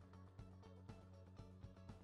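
Faint background music with a steady beat, about two beats a second, and held notes.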